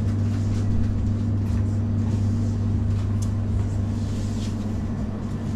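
Steady low electrical hum of a refrigerated fish display counter, with a few faint ticks and rustles on top.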